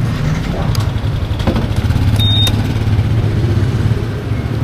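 Honda Forza 350 scooter's single-cylinder engine running steadily at low speed, a low hum heard close up from the rider's camera. A short high beep sounds about two seconds in.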